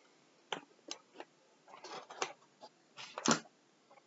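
Cardboard packaging being handled as a boxed action figure is taken out of its outer box: a scatter of short scrapes, taps and knocks, the loudest a little past three seconds in.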